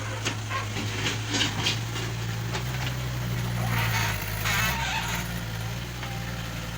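A JCB 1CX compact backhoe-loader's diesel engine running steadily under work. Its note rises a little about three seconds in and drops back near five seconds. Scattered knocks and a rougher noisy stretch come from the machine at work.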